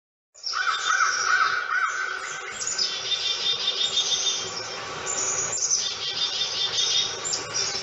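Birdsong from many birds at once: dense, overlapping chirps and calls, with a run of short repeated chirps about four a second.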